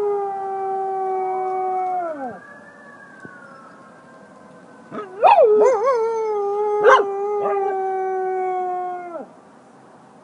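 Golden retriever–duck toller mix howling, set off by a siren. Two long, steady howls: the first fades out about two seconds in. The second starts about five seconds in with a few wavering yelps, holds steady, and ends with a falling drop near the end.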